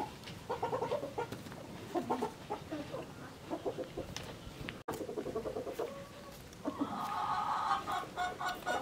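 Chickens clucking in short bursts, then a longer drawn-out call that breaks into quick repeated notes near the end.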